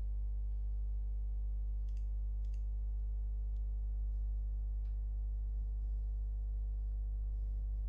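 Steady low electrical hum, a mains buzz with several higher tones over it, with a few faint clicks about two, three and a half and five seconds in.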